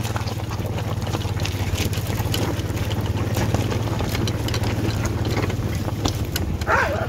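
ATV engine running steadily at low revs, with gravel crunching and clicking under wheels and paws as a dog team pulls along the trail. A brief high cry comes near the end.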